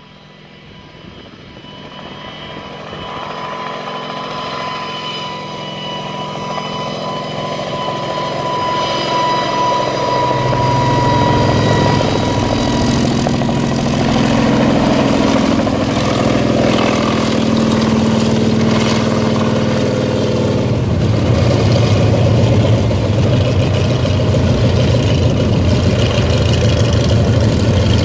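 Kamov Ka-26 coaxial-rotor helicopter with its two radial piston engines, growing louder over about ten seconds as it approaches, then loud and close with a low rotor beat. About two-thirds of the way through the sound settles into a steadier, lower run as the helicopter sets down, engines and rotors still turning.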